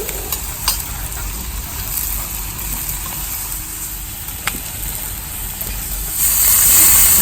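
Masala-coated chicken sizzling on a very hot stone slab, a steady hiss with a few sharp clicks. About six seconds in the sizzle jumps to a louder, brighter hiss as more wet masala hits the hot rock.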